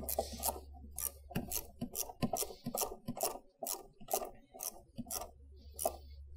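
Ratchet wrench clicking in short strokes, about two or three clicks a second, as the nut on a car battery's negative terminal clamp is tightened down.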